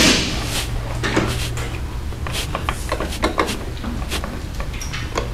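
Scattered light clicks and knocks from hands and a tool working at a Ford tractor's dash, over a steady low hum. The engine is not running.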